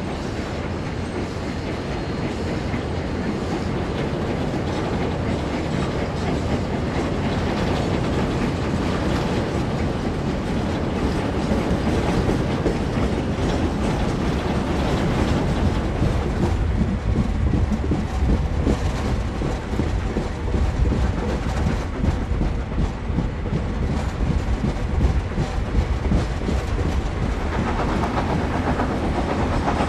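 Steam-hauled mixed freight train running, heard from an open coach window: wheels clicking over rail joints over a steady rolling rumble, with the NRZ 14A Garratt working ahead.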